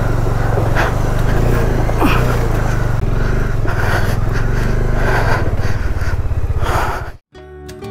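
Motorcycle engine running at low speed while the bike picks its way over loose rocks, with scattered knocks and scrapes from the tyres and stones. It cuts off suddenly about seven seconds in, and acoustic guitar music begins.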